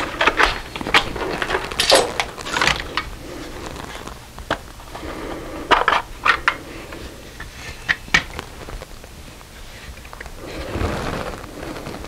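Plastic clicks, snaps and scraping as a handheld digital multimeter's case is pried apart and its front panel taken off, in irregular bursts that are thickest in the first few seconds.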